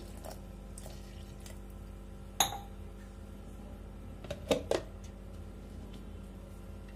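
Water poured from a steel glass into a plastic mixer-grinder jar of mango puree and curd. A sharp knock comes about two and a half seconds in, and a few quick clicks follow a couple of seconds later as the jar's lid is fitted.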